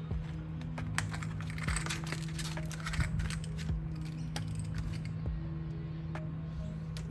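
Irregular light clicks and rattles of a new radiator cap being handled and unpacked from its plastic packaging, denser in the first few seconds. Under them run a steady low hum and quiet background music.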